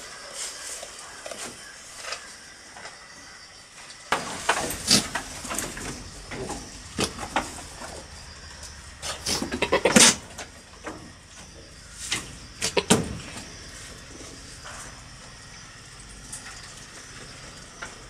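Billy goat making its rapid, sputtering courtship noise at a nanny goat, a quick run of pulses building to the loudest moment about ten seconds in. Scattered knocks and scrapes of the goats against the wooden pen come before and after it.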